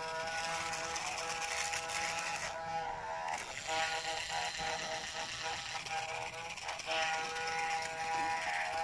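Small battery-powered toy sewing machine running with a steady buzzing hum. It stops for about a second roughly a third of the way in, then runs again.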